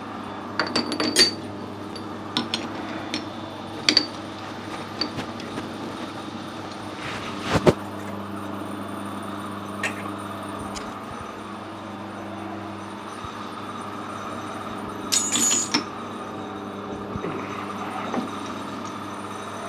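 Scattered metallic clinks and knocks from a metal lathe's three-jaw chuck as a stainless steel bar is fitted into its jaws and the chuck is tightened with its key. There is a louder knock about midway and a short rattle later, over a steady low hum.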